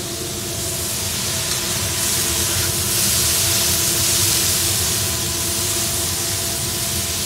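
Freshwater shrimp sizzling on a hot teppanyaki flat-top griddle: a steady loud hiss of steam that swells a couple of seconds in as liquid squirted from a bottle hits the hot metal.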